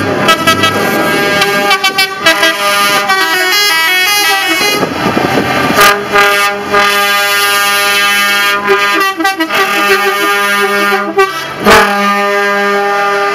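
Truck air horns sounding as the trucks pass, first in short notes that step up and down in pitch like a tune, then in one long steady blast broken briefly near the end.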